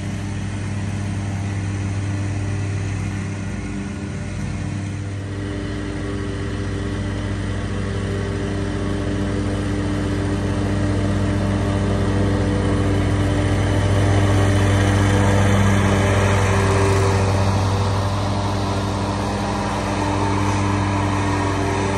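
Red stand-on commercial mower's engine running steadily with a low hum, growing louder as the mower drives up close.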